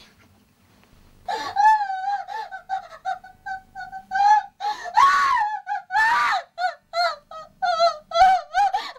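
A woman's high-pitched voice wailing and sobbing in short, broken cries, with two louder screams about five and six seconds in. These are performed distress cries recorded at a dubbing microphone.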